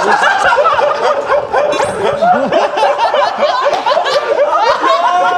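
A group of young men bursting into loud laughter together, many voices overlapping.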